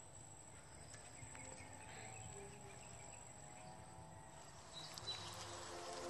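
Faint forest ambience: a steady high insect-like whine with a few faint, short calls of small wild animals. Music begins to fade in near the end.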